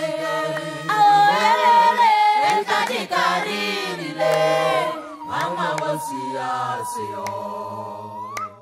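Background music: a choir singing a cappella in harmony, holding chords that change every second or so, fading out at the end.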